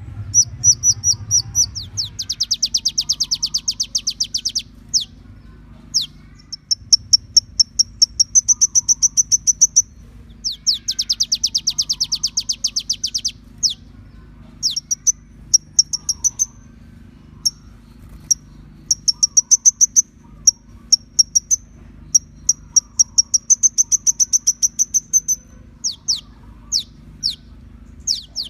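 Kolibri ninja (a sunbird) singing: bout after bout of fast, high trills of rapidly repeated notes, each bout a second or a few long, with short pauses and single sharp notes between. A faint steady low hum lies underneath.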